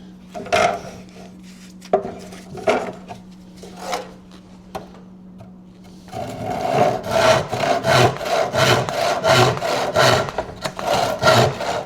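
Hand saw cutting through a wooden stake. A few separate knocks and scrapes come first, then about halfway through the saw settles into quick, steady back-and-forth strokes.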